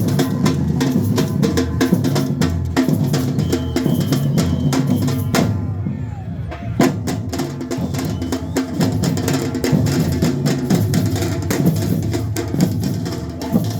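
Marching band playing in a street procession: drums, bass drum and snare, beat a steady rhythm over sustained pitched instruments.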